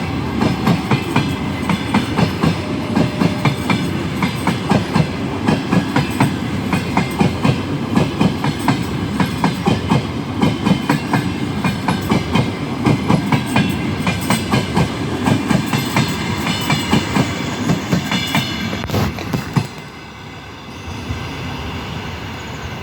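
Passenger train coaches rolling past at speed, their wheels clacking over the rail joints in a steady repeating rhythm with a heavy rumble. About 19 to 20 seconds in the clacking stops abruptly as the train clears, leaving a quieter steady rumble.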